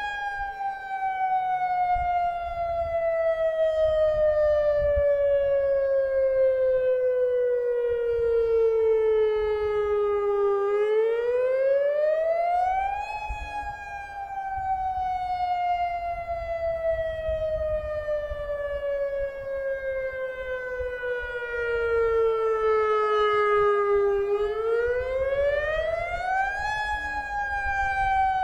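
Federal Signal Modulator 6048 lahar warning siren sounding its wail during a test. The pitch climbs over about two and a half seconds, then falls slowly over about eleven, and the cycle repeats. A fainter second siren wails out of step behind it.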